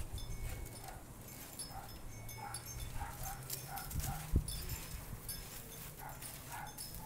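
A string of faint, short animal calls at irregular intervals over a low steady hum, with a single knock a little over four seconds in.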